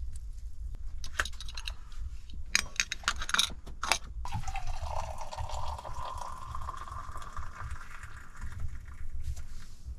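A few metal clinks from a kettle lid being handled, then tea pouring from a kettle into a steel mug for about five seconds, rising in pitch as the mug fills.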